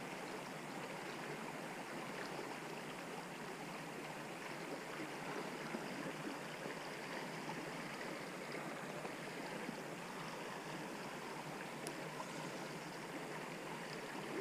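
Creek water running, a steady, even rush of flowing water.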